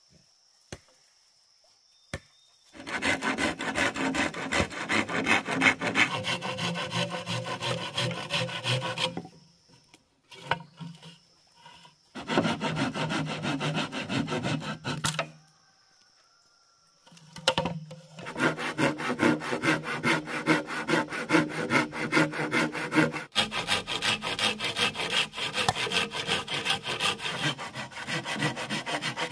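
Hand saw cutting bamboo in spells of rapid strokes a few seconds long, with short pauses between.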